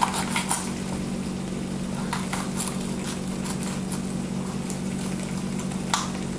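Chicken breasts sizzling in a frying pan, with scattered sharp clicks and crackles as green bell pepper is sliced by hand over the pan and the pieces drop in. A steady low hum runs beneath.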